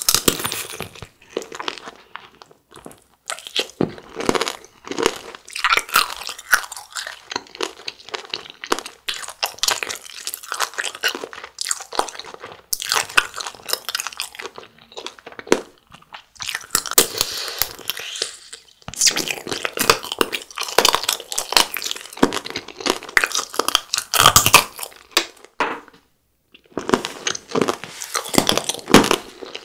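Close-miked crunching and chewing of frozen jelly tanghulu: the hard sugar-syrup shell cracking between the teeth as the jelly is bitten and chewed, in dense runs with a few short pauses.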